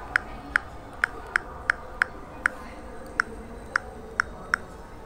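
Key-press clicks from a smartphone's on-screen keyboard as a password is typed: about a dozen short, sharp clicks at an uneven pace, with a short pause about halfway through.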